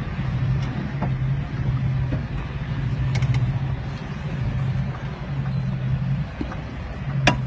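Lifted Jeep Grand Cherokee WJ's engine running as it crawls over rough dirt: a steady low engine note over the noise of the tyres and ground, with a sharp knock a little before the end.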